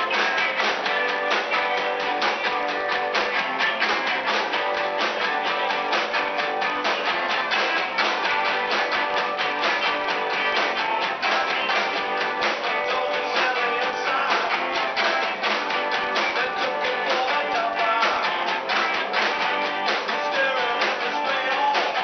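A live rock band playing with a steady, driving beat: electric guitars, drums and upright bass, with a singer. The recording is thin, with little bass.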